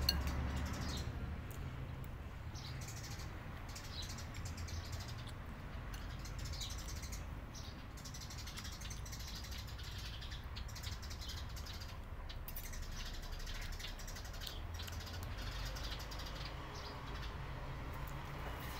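Close-up eating sounds: chewing and a metal spoon working in a bowl, with scattered bird chirps in the background.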